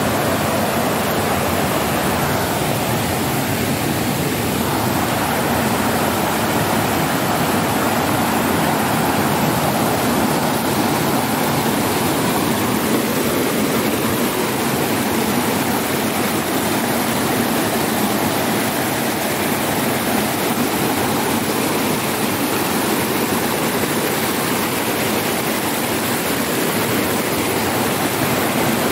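Mountain stream rushing over rocks, a steady loud rush of whitewater.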